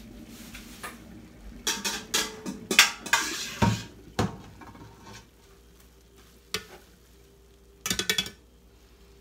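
Metal colander of drained spaghetti knocking against a stainless steel sink: a cluster of clanks with a brief hiss in the first half, then a single knock and a quick rattle of several knocks near the end.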